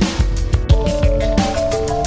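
Background music with a steady beat; a line of melody notes comes in about halfway through.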